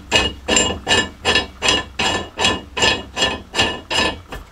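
Metal coupling nut being spun by hand onto a threaded rod, a rhythmic metallic clinking scrape about two and a half times a second.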